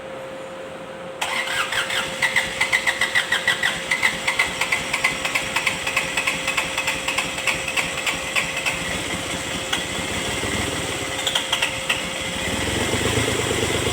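Kubota D905 three-cylinder diesel cranking on its starter with a pulsing churn, about three beats a second. Near the end it catches and runs. The engine is hard-starting, which is put down to lack of fuel and blowby.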